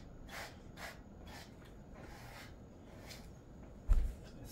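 A pet brush stroking through a Jindo mix's coat, a soft swish about every half second, stopping about three seconds in. A loud, deep thump follows shortly before the end.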